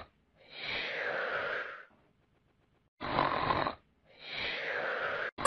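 Snoring: two slow cycles, each a harsh rasping in-breath followed by a longer breathy out-breath that falls in pitch, with dead silence between the breaths.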